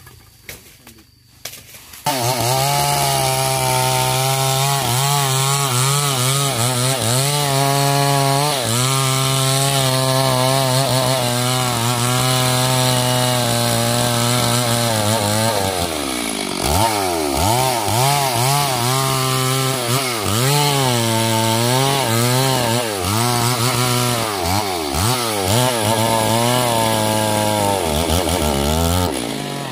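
Stihl MS 382 two-stroke chainsaw starting abruptly about two seconds in, then running at high revs while cutting wood. Its pitch holds steady at first, then repeatedly dips and recovers as the chain loads in the cut.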